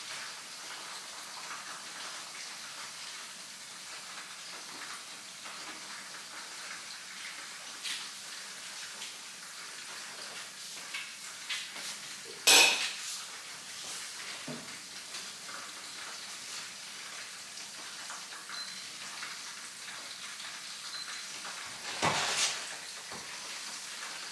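Chicken frying in oil in a pan with a steady, faint sizzle, broken by a few clinks and clatters of pans and utensils. The loudest clatter comes about halfway through and another near the end.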